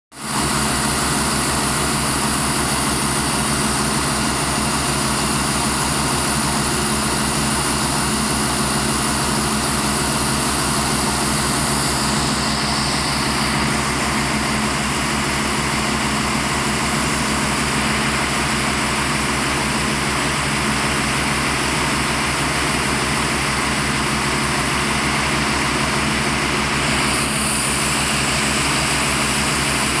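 Diesel engine of a tractor and the portable air compressor it tows running steadily at constant speed, with a constant hiss of compressed air and water blowing out of a borewell.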